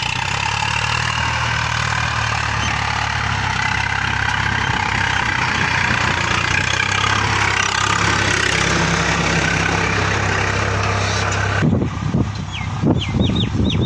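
Swaraj 855 FE tractor's three-cylinder diesel engine running steadily under load as it pulls a cultivator through the soil. Near the end the engine sound stops abruptly, giving way to several short bird chirps and a few low thumps.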